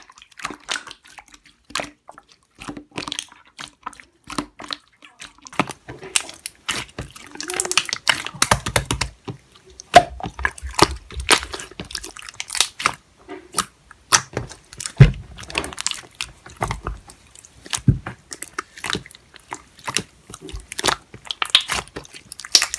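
Slime being squeezed and pressed by hand: a continuous run of irregular wet clicks and crackling pops, some in quick clusters.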